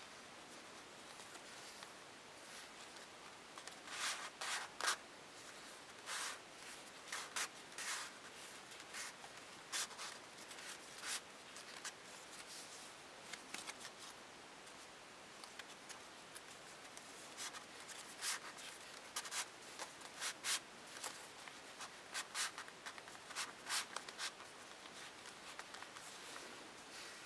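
Paper of an eight-sheet origami transforming shuriken rustling and scraping in the hands as it is pushed from a star into a ring and back, in short irregular bursts.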